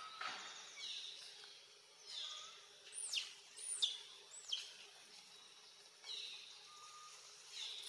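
Wild birds calling: a string of high whistled notes, with three sharply falling whistles in quick succession around the middle.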